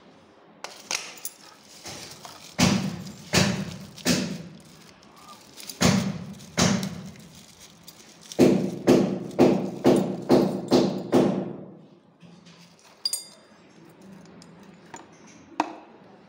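Dull knocks and thumps as a metal cupboard lock and its parts are handled on a hard floor. They come singly at first, then in a fast run of about eight knocks, a little over two a second. A light metallic clink follows about 13 seconds in.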